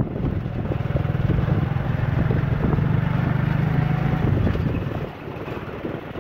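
A motor vehicle's engine running steadily, then dropping away about four and a half seconds in.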